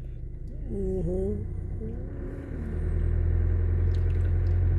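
Car running at low speed, heard inside the cabin: a steady low engine and road rumble that grows louder about halfway through, with a couple of faint voice sounds early on.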